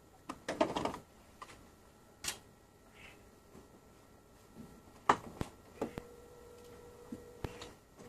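A few sharp plastic clicks and knocks from a split-system air conditioner's plastic casing being handled and unclipped, with a quick rattling cluster just under a second in and single clicks scattered after.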